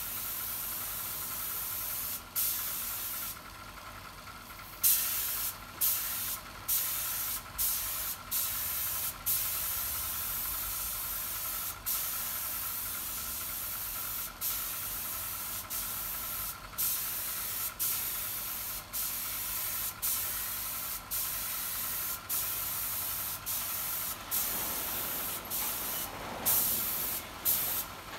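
Compressed-air spray gun spraying finish onto carved wood in repeated bursts of hiss. The hiss breaks off for a moment each time the trigger is let go, with a sharper puff as each burst starts, and there is a longer pause a few seconds in.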